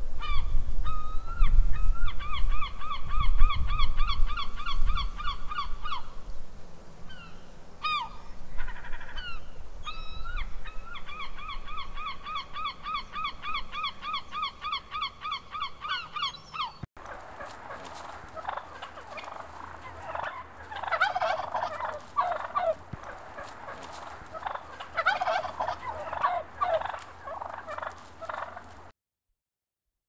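Gull calls: two long series of rapid, evenly repeated yelping notes, then, after a cut to another recording about halfway through, a busier jumble of gull calls.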